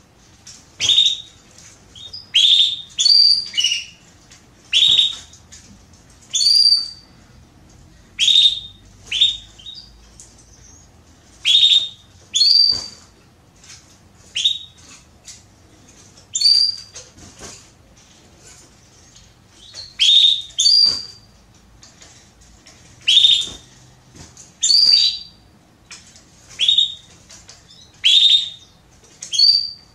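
Female domestic canary (Belgian canary) giving short, high chirping calls, one every second or two and sometimes two in quick succession. These are the solicitation calls of a hen in breeding condition calling for a male.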